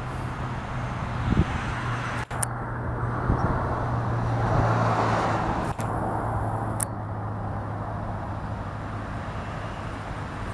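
Union Pacific double-stack container freight train rolling past: a steady rumble of wheels on rail, with a low steady hum that fades about six seconds in and a couple of brief clicks.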